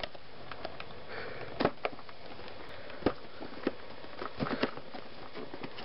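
Cardboard toy packaging box being handled and pried open: scattered light taps, scrapes and rustles over a steady hiss.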